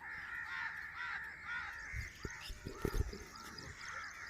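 Many birds calling over one another in a steady chorus of short, arched, repeated calls. A few dull low thumps come about two to three seconds in.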